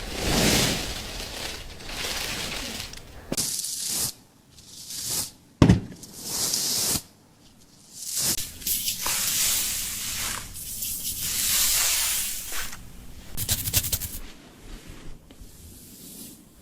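Scissors cutting through thick lengths of long hair in a series of rasping, crunching bursts with short pauses between them, and a sharp snap about five and a half seconds in.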